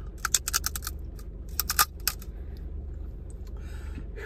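Crab leg shell cracking and crunching between teeth: a quick run of sharp cracks, then a second run about a second and a half in, with the loudest crack near two seconds. A steady low hum sits underneath.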